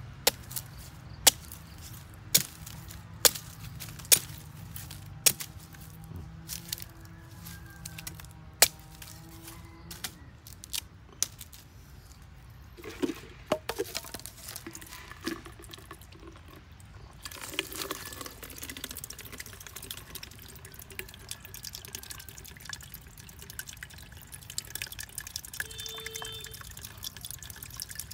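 A blade chopping into a coconut's thin husk: a row of sharp strikes, about one a second, for the first several seconds. A little past halfway the opened coconut's water starts pouring and dripping into a plastic measuring jug.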